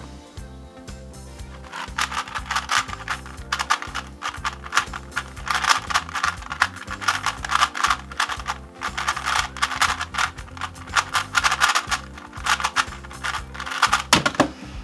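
An original Rubik's Cube being turned fast in a speedsolve: a rapid, continuous clatter of layer-turning clicks starting about two seconds in, over background music.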